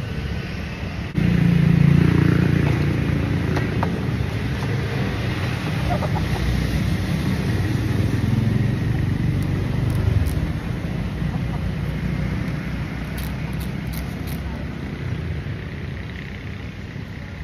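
Street traffic: a motor vehicle's engine rumble that comes up suddenly about a second in, is loudest soon after and fades away by about ten seconds, leaving steady quieter road noise.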